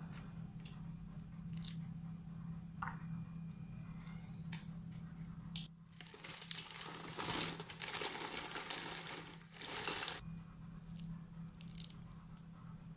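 Scissors snipping open a milk carton with a few sharp clicks, then dry cereal flakes pouring from a plastic bag into a bowl for about four seconds, a dense rattling rustle that stops abruptly. A steady low hum runs underneath.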